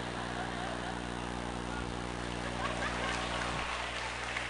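Audience laughing, a dense, steady wash of many voices, over a steady low hum.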